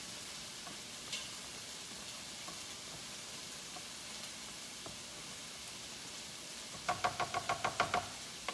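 Chicken sizzling in a frying pan, a steady faint hiss, with light scrapes of a wooden spatula fluffing cooked rice in a plastic steamer. About seven seconds in comes a quick run of short pitched sounds.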